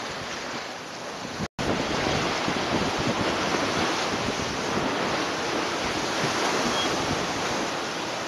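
Water rushing and splashing along the hull of a sailboat moving fast through choppy sea, mixed with wind buffeting the microphone. It cuts out for an instant about a second and a half in, then comes back a little louder.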